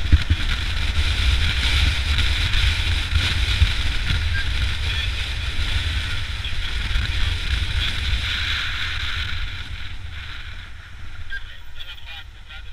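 Wind rushing and buffeting over the helmet-mounted camera's microphone on a moving police motorcycle, with engine and road noise underneath; the level drops about ten seconds in.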